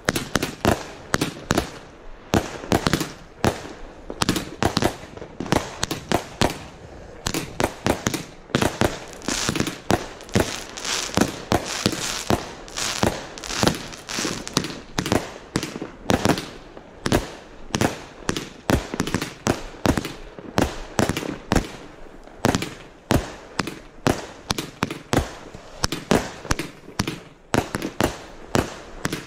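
Primed Pyrotechnics firework barrage cakes firing in quick succession: a steady run of sharp shots, a few a second, as the tubes launch and the shells break overhead, with a denser hissing, crackling stretch about midway.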